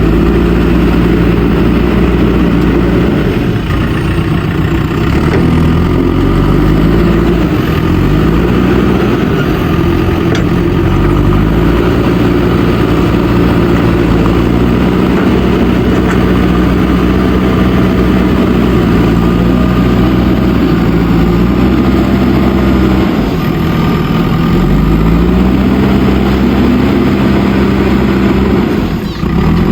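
Diesel engine of a JCB backhoe loader running under working load, its speed rising and falling several times as the machine works, with a brief drop near the end.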